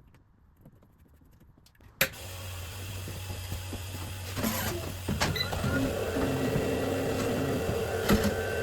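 A sharp click about two seconds in, then a Procolored K13 Lite DTF printer powering up: a steady low hum with intermittent motor whirs and clicks as it initializes.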